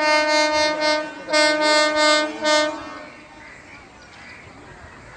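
Diesel locomotive horn sounding one steady, single-pitched note in three blasts: a long one that ends about a second in, a second blast, then a short third, after which the horn stops.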